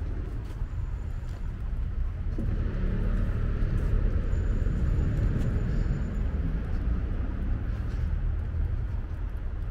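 City street traffic: a steady low rumble, with a car passing by and swelling louder from about two and a half to six and a half seconds in.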